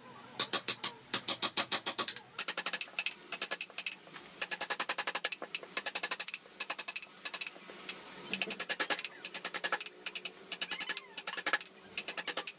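Steel chisel being worked into a wooden carving by hand, making bursts of rapid light taps, about ten a second, with short pauses between the bursts.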